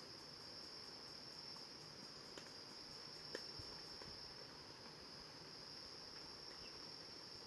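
Insect chorus: a steady, unbroken high-pitched trill, with a couple of faint ticks about halfway through.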